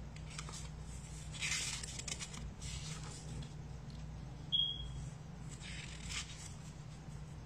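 Paper cards being handled and slid on a table: a few soft rustling scrapes, the longest about a second and a half in, others near three and six seconds in. A brief high beep sounds about four and a half seconds in, over a steady low hum.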